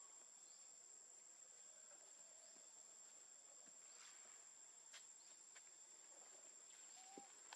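Near silence outdoors: a faint, steady high-pitched insect drone, with a few soft clicks.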